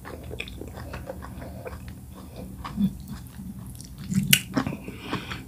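Close-miked mouth sounds of eating bitterleaf soup by hand: wet chewing and lip smacks, with a run of small clicks. Sharper smacks stand out near three seconds in and a little past four seconds in.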